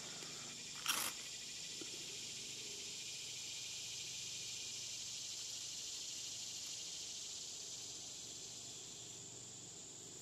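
A steady, high-pitched insect chorus, like crickets, buzzing without a break. A single brief scrape comes about a second in.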